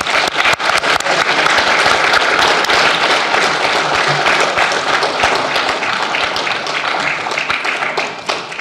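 A large seated audience applauding: dense, even clapping that swells up just before the start, holds, and thins out near the end.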